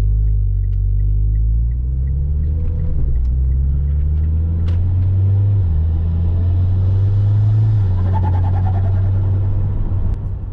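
Mitsubishi Lancer Ralliart's turbocharged four-cylinder engine heard from inside the cabin, a steady low drone while cruising gently, its pitch stepping a couple of times. A light, even ticking sounds during the first few seconds.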